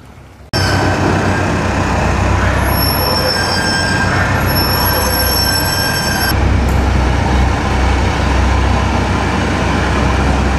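Amphibious combat vehicle's diesel engine running loud and steady inside a ship's steel well deck, with a low rumble and a thin high whine over it. The whine drops away and the low rumble grows heavier about six seconds in.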